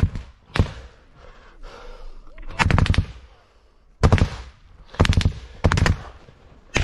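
Close automatic small-arms gunfire: two single shots near the start, then short rapid bursts of three to five rounds about two and a half, four, five and six seconds in.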